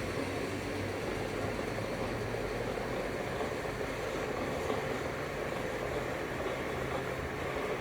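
Steady running noise of a rail vehicle, an even rumble with a low hum underneath.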